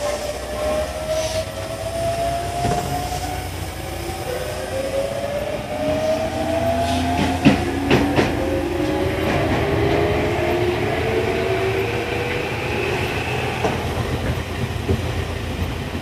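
Tokyu 1000 series train's GTO-VVVF inverter and traction motors whining under acceleration, several tones climbing in pitch in steps over a steady rumble. Two sharp clacks come about halfway through.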